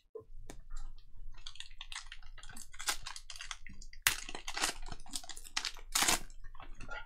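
Foil wrapper of a 2021-22 Panini Donruss basketball hobby pack crinkling and tearing as it is ripped open by hand, with louder sharp crackles about four seconds in and again about six seconds in.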